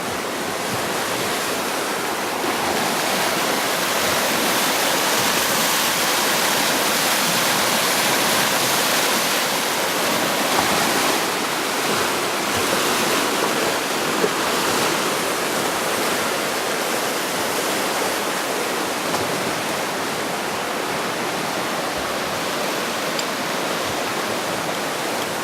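Rushing water, a steady full noise that swells a little a few seconds in and eases off again about halfway through.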